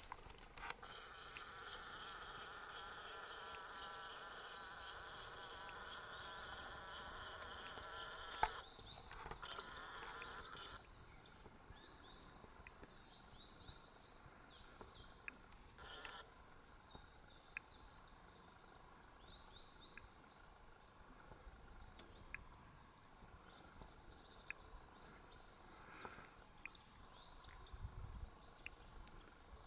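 A steady insect buzzing for about the first eight seconds, which breaks off and returns briefly. After that the background is quiet, with faint short bird chirps and ticks.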